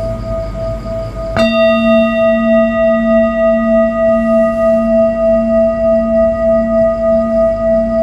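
Large metal singing bowl struck once with a mallet about a second and a half in, over the fading ring of an earlier strike. It then rings on as a low hum with several higher overtones, pulsing about twice a second.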